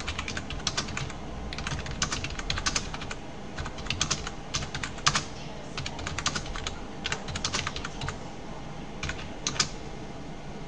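Typing on a computer keyboard: quick key clicks in irregular bursts, which stop shortly before the end.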